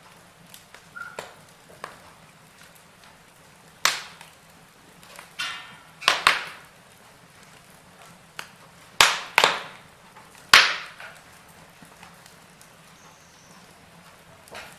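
Campfire wood crackling, with a handful of loud sharp pops at irregular moments and smaller ticks between them over a faint steady hiss.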